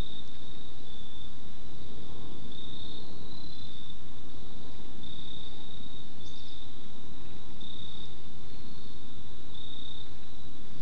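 Insects, likely crickets, trilling: short trills about a second long at one steady high pitch, repeating irregularly, with a second singer slightly higher now and then. A steady low rumble runs underneath.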